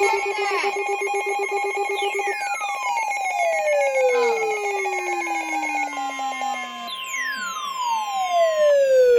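Electronic emergency alert tones: a steady high tone that cuts off near the end, layered with a fast pulsing ring for the first two seconds and two long falling sweeps, one about two seconds in and one about seven seconds in.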